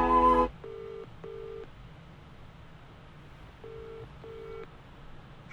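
British-style telephone ringing tone heard while a call is placed: two double rings, each a pair of short steady burrs, about three seconds apart.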